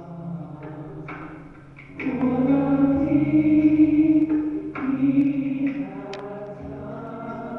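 Gospel choir singing long held chords, swelling much louder about two seconds in and easing back near the end.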